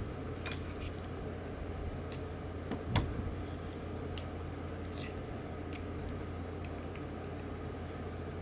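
Small metal fishing-reel parts clicking and tapping as they are handled and worked back off the frame, scattered single clicks with the sharpest about three seconds in, over a steady low hum.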